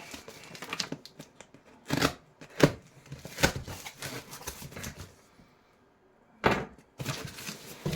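Handling noise from a boxed model being picked up and moved: scattered sharp taps, clicks and knocks with light rustling, with a brief quiet spell before a final knock.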